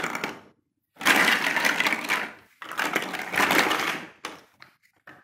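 Large plastic toy building blocks clattering as they are stirred and sifted through, in three spells of a second or so each, then a few single clicks near the end.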